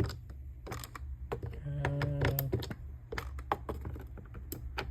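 Irregular light clicks and knocks of a tool working the T25 Torx screws that hold the plastic engine air filter box cover, with a brief low steady hum about halfway through.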